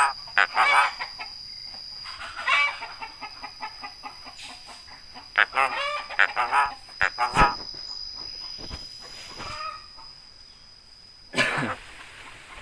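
Jalak kebo (Javan myna) making a series of short, varied calls a second or two apart, some clipped and sharp. A steady high tone runs behind them and stops shortly before the end.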